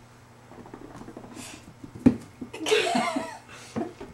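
A woman's short, breathy laugh, with a sharp knock just before it.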